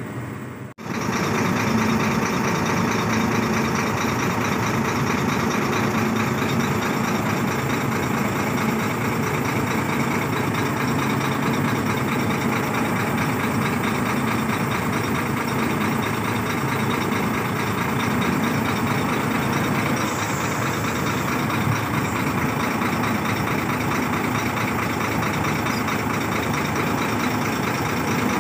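Diesel engine of heavy earthmoving machinery idling, loud and steady. It comes in after a brief dropout about a second in.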